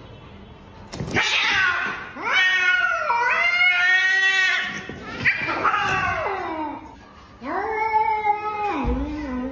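A cat yowling (caterwauling): four long, wavering, drawn-out howls in a row, starting about a second in.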